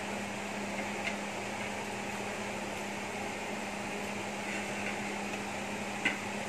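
Pan of salted water at a rolling boil with carrot pieces in it, bubbling steadily over a steady low hum. Two faint clicks, about a second in and near the end.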